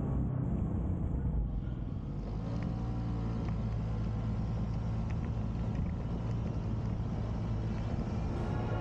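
A car driving on the road: steady engine drone with tyre and road noise.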